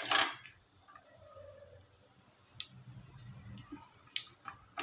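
Whole spices (bay leaves, black peppercorns, cinnamon, shahi jeera) frying in hot oil in an aluminium pot: a brief loud burst at the start, then scattered sharp pops and ticks as they crackle.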